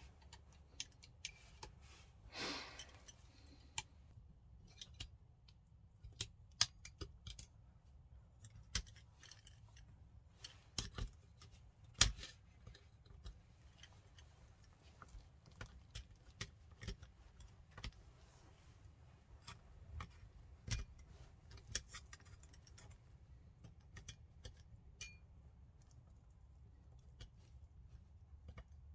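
Scattered small clicks and taps of a screwdriver and small metal and plastic parts being handled in an airsoft rifle's lower receiver while a trigger board is fitted, with one short hiss about two seconds in.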